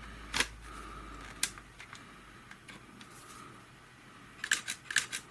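Sharp clicks and taps from handling a camera flash unit: one soon after the start, another about a second later, and a quick run of them near the end.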